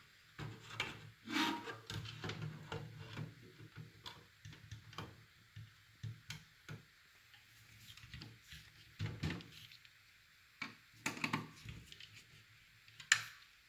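Hands fitting an SFX power supply with its ATX adapter bracket into a mini-ITX PC case: scattered knocks, rubs and light clicks of metal parts, with one sharp click near the end.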